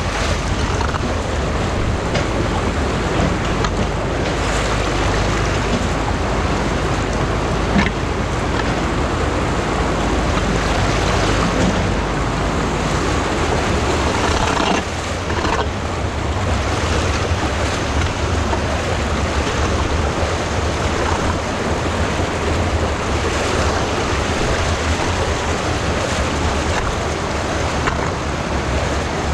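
Stream water pouring over a low concrete weir and churning below it in a steady, full rush.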